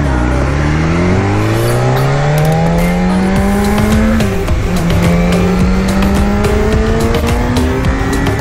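BMW S1000RR inline-four engine accelerating hard, its pitch rising steadily for about four seconds, dropping sharply at a quick upshift, then climbing again under full throttle. Wind buffets the microphone throughout.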